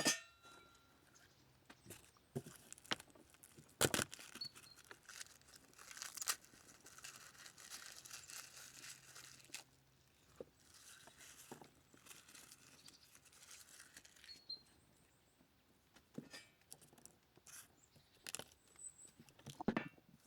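Faint rustling and crinkling in two stretches of a few seconds each, with scattered sharp knocks and clicks.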